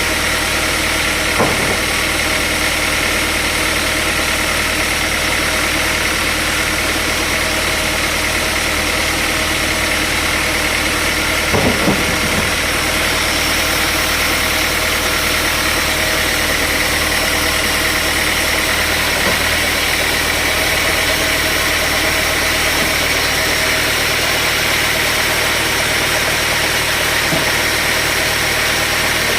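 Sawmill machinery running steadily, with a short knock about a second and a half in and another about twelve seconds in.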